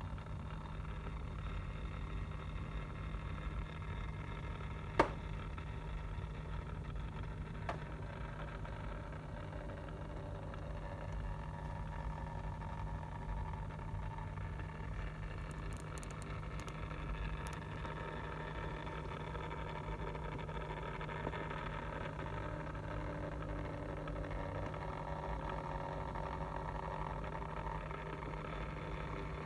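Steady low mechanical hum with a rumble beneath it, with one sharp click about five seconds in and a fainter one a few seconds later.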